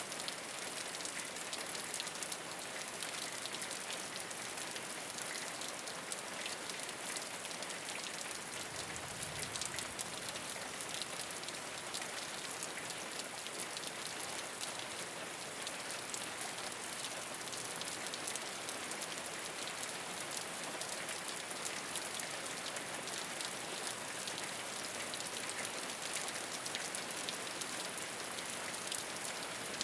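Steady rain falling on a rooftop, an even patter of many fine drop ticks over a hiss.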